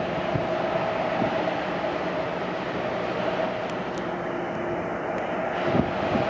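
Class 60 diesel-electric freight locomotive, with its eight-cylinder Mirrlees engine, running steadily as it approaches at low speed hauling loaded wagons: a constant rumble with a steady held whine over it.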